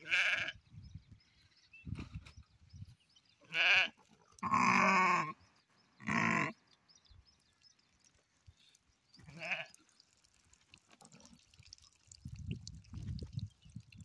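Sheep bleating five times in separate calls, the longest lasting about a second near the middle and the last one fainter.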